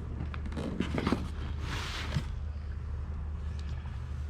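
Items being handled and pulled out of a box: a few light knocks and a brief rustle in the first two seconds, over a steady low hum.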